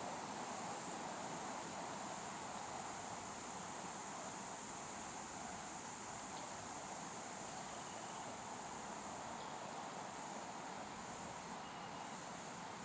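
Steady, high-pitched chorus of insects in the forest, droning without a break.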